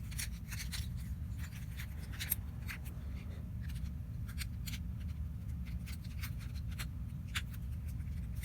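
Small plastic clicks and taps, irregular and scattered, of twisty-puzzle pieces and caps being handled and fitted, over a steady low hum.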